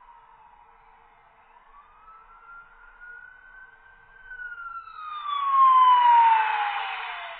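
Emergency vehicle siren wailing in one slow rise and fall of pitch. It grows much louder toward its peak about two-thirds through, with a rushing noise around the loudest part.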